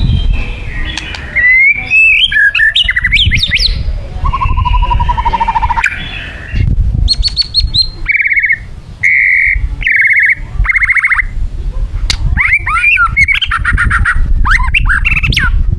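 White-rumped shama singing a varied song: phrases of sweeping whistles, a lower buzzy trill, and runs of rapid repeated notes, with short gaps between phrases, over a low background rumble.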